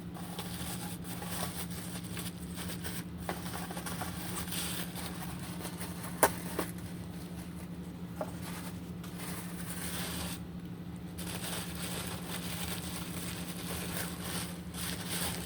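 Rustling and scraping of perfume packaging being handled and opened, with a few sharp clicks or taps about six to eight seconds in, over a steady low hum.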